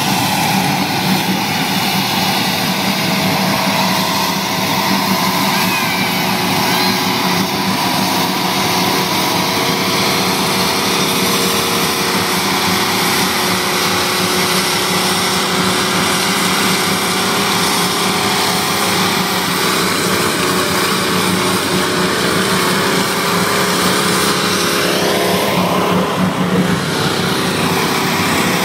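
Rat rod engine held at high revs through a long burnout, its rear tyres spinning on the pavement; the revs climb near the end.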